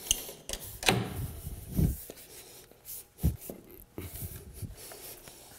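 Laminate T-molding being pressed down by hand into its plastic track: a few separate clicks and knocks as it snaps in, the strongest about two and three seconds in.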